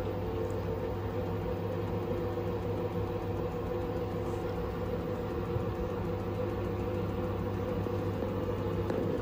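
LG 7 kg front-loading washing machine on an interim spin, its drum turning at a steady speed with an even motor hum. The load is slightly unbalanced.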